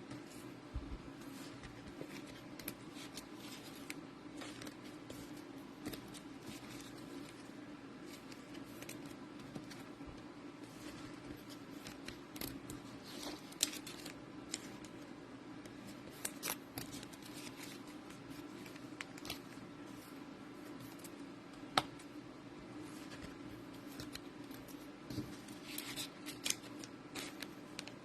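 Donruss football trading-card packs being opened and the cards handled: scattered short rustles and clicks over a steady low hum.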